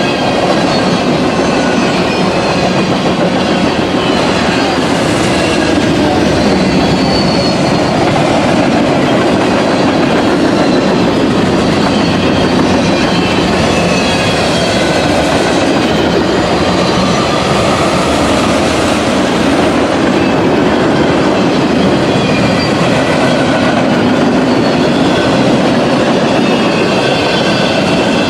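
CSX freight train's cars rolling past, a steady loud rumble and clatter of steel wheels on the rails, with faint high wheel squeals coming and going.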